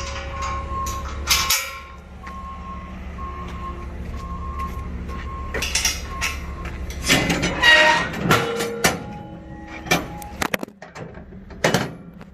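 A reversing alarm beeping steadily over an idling diesel engine, then a run of loud metal clanks and bangs a little past halfway, and a few sharp knocks near the end.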